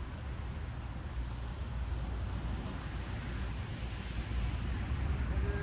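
Steady low rumbling noise of wind buffeting the microphone, with no distinct events.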